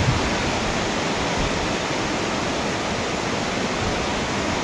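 Very heavy rain pouring down, a steady dense hiss of water.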